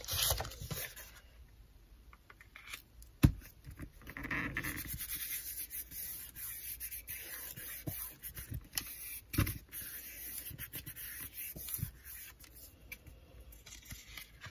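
Hands pressing and rubbing a sheet of paper card against a silicone craft sheet to lift an inked stamp image: paper rubbing and scraping, with a couple of sharp knocks.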